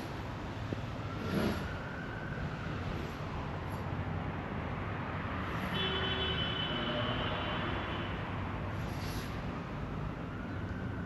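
Steady rushing of wind through trees, mixed with road traffic going by in the background; a brief high whistling tone sounds just past the middle.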